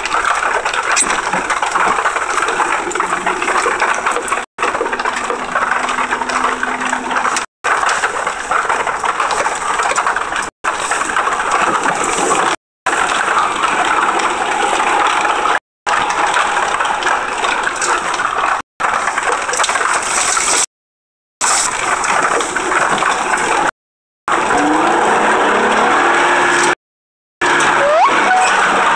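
Steady road and driving noise inside a moving 2003 Honda Accord V6, a dense rushing hiss without a clear engine tone. The sound cuts out to silence for a moment about nine times.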